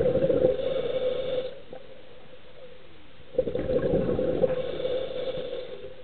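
A scuba diver's exhaled breath bubbling out of the regulator, heard underwater: two gurgling bursts of about two seconds each, a couple of seconds apart.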